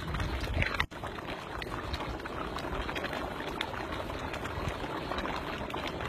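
Liquid bubbling and sizzling in a cooking pot, a steady crackly hiss broken by a brief dropout about a second in.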